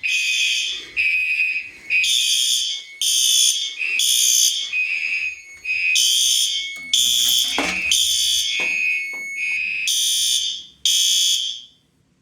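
Several fire alarm horns sounding together in a repeating on-off pattern, in two different pitches that run a little out of step with each other. The horns cut off suddenly shortly before the end.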